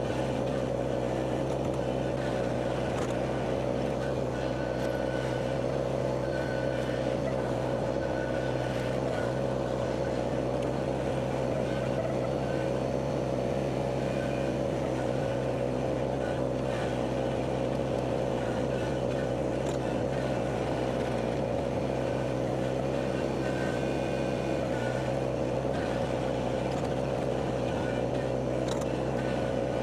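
An engine running at a steady speed, a constant unchanging drone.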